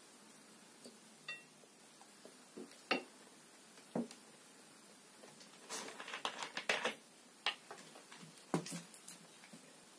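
Small tabletop sounds: a metal spoon clinking and knocking on a glass plate, a quick run of laptop keyboard and touchpad clicks in the middle, and knocks and crackles of a plastic soda bottle being picked up near the end.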